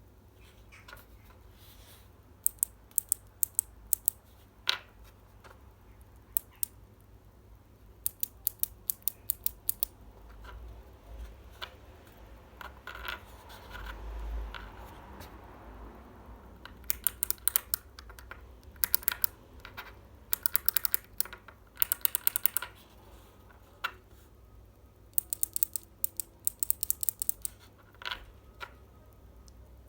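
Kailh Jade and Navy clicky mechanical key switches pressed by hand in quick runs of sharp clicks, several presses to a burst, with pauses between the bursts. A soft rustle of handling comes about halfway through.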